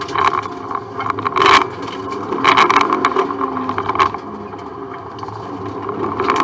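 Subaru Impreza rally car's flat-four engine heard from inside the cabin, its revs rising and falling as it is driven hard through a run of bends. Short, loud bursts of noise break in several times, about a second and a half, two and a half and four seconds in.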